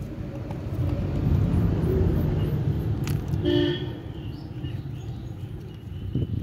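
Low engine rumble that swells over the first few seconds and then eases off, with a brief pitched tone about three and a half seconds in.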